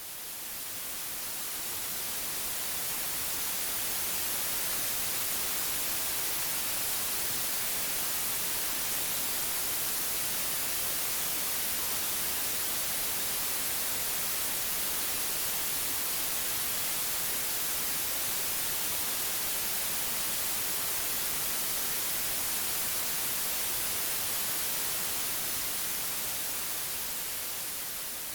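Synthetic white noise: an even, steady hiss, strongest in the highs. It swells up over the first few seconds and eases off slightly near the end.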